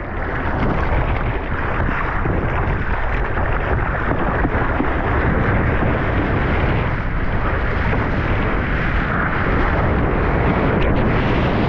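Steady, loud rush of churning whitewater and wind buffeting a surfer's point-of-view camera microphone while riding a wave, with a few brief clicks near the end.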